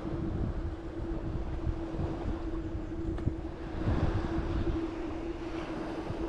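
Wind buffeting the microphone in uneven gusts, over a steady mechanical hum of one unchanging pitch.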